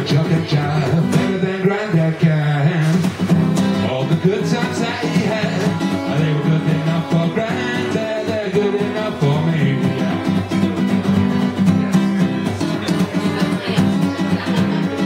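Man singing a song live to his own acoustic guitar, amplified through a small PA.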